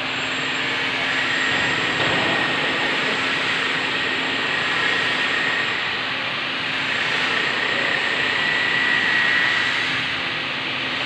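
Industrial machinery running with a steady rushing drone, a low hum and a faint high whine.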